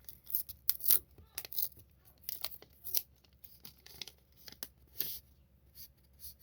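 Pokémon trading card pack wrapper being torn open and handled: a run of short, irregular rips and crinkles.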